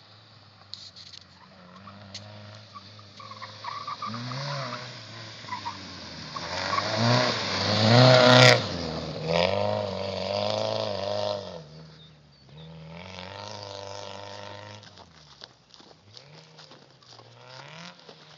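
Peugeot 106 XSi engine revving hard, its note climbing and dropping again and again as the car is driven along a gravel track, loudest as it passes close about eight seconds in. After it passes, the engine note carries on rising and falling, fainter.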